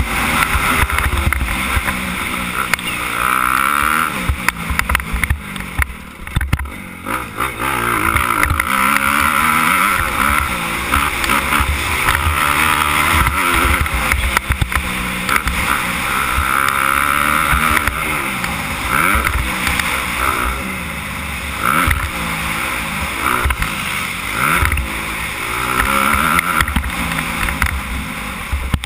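Suzuki 250 motocross bike's engine revving up and dropping back again and again as it is ridden hard on a dirt track, the pitch climbing and falling every second or two.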